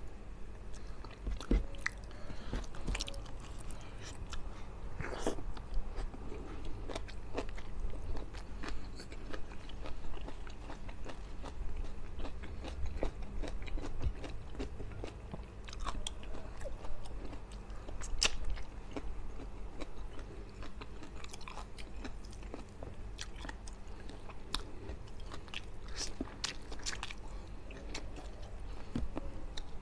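A man chewing and biting with his mouth close to the microphone as he eats rice and fish by hand, with scattered sharp clicks and crunches.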